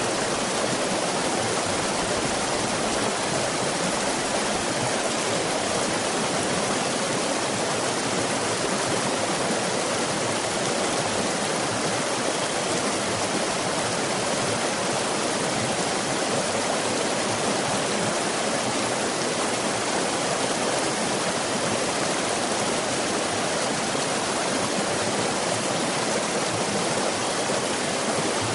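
Waterfall: a steady rush of falling water that holds one level throughout.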